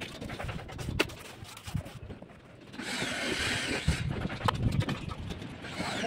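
Masonry work: a steel trowel scrapes mortar along a concrete ledge for about a second, and around it come sharp knocks as concrete blocks are set down and tapped into the mortar bed.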